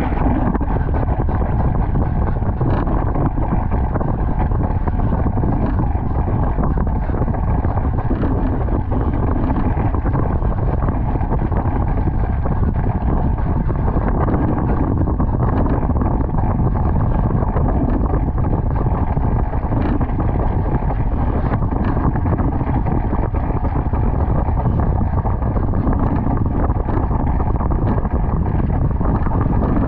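Steady wind noise buffeting the microphone, with water rushing past, from a foiling Moth dinghy sailing downwind at about 36 to 42 km/h.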